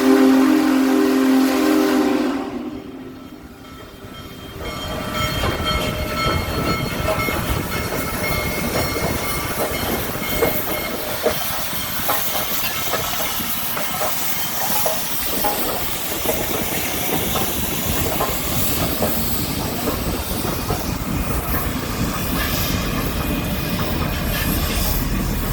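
Union Pacific Big Boy 4014's steam whistle sounding a loud multi-note chord that ends about two seconds in. After a short lull, the steam locomotive and its train roll past: a steady rumbling noise with frequent clicks of wheels over the rails.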